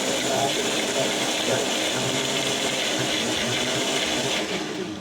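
Countertop blender running steadily, churning frozen mango chunks with honey, then winding down and stopping near the end.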